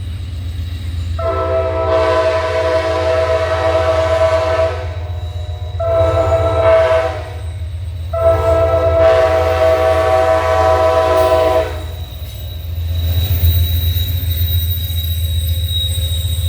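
Amtrak locomotive's multi-chime air horn sounding three blasts, long, short, long, played as a horn show. Under them runs the steady low rumble of the train climbing the grade, which grows louder near the end as the train comes past.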